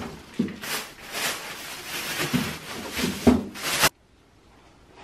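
Plastic grocery bags and packaging rustling and knocking as groceries are unpacked from a shopping bag, cutting off suddenly about four seconds in to a much quieter room.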